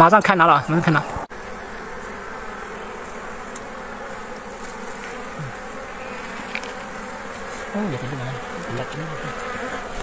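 A honeybee colony from a wild comb buzzing in a steady, continuous hum. A person's voice breaks in briefly at the start and again about eight seconds in.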